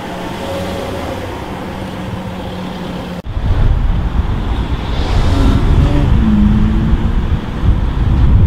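Ferrari F12 Berlinetta's V12 engine running at low speed in traffic. About three seconds in it becomes abruptly louder and closer, with short rises and falls in engine pitch.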